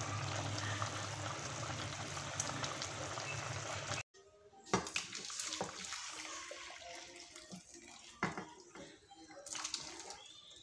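A pot of pork sinigang boiling on the stove, a steady bubbling hiss that cuts off sharply about four seconds in. Then the broth and vegetables are poured from the pot into a glass dish, a softer splashing with a few sharp knocks of the pot against the dish.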